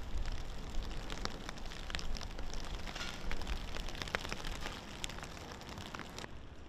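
Water pattering and splashing: a dense crackle of many small sharp ticks over a low rumble, stopping suddenly about six seconds in.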